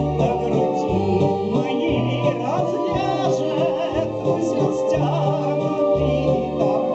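A woman singing a Russian romance with vibrato, over a sustained electronic organ or keyboard accompaniment with steady bass notes.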